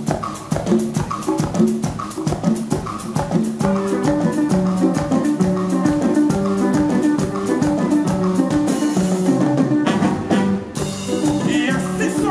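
A norteño band plays live: accordion and saxophone over guitar and a steady drum and conga beat. The held melody notes come in about three and a half seconds in.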